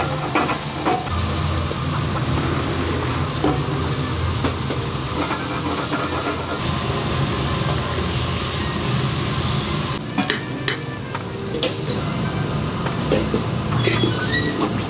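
Shrimp and onions sizzling and frying in a nonstick frying pan while being stirred. About two-thirds of the way through the sizzle thins and scattered clicks and scrapes come through.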